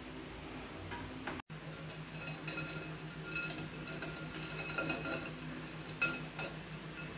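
Metal slotted spoon clinking and scraping against a glass bowl of ice water as a boiled egg is stirred in it to cool, the glass ringing briefly after the firmer taps. The taps come irregularly, several clustered around the middle and again near the end.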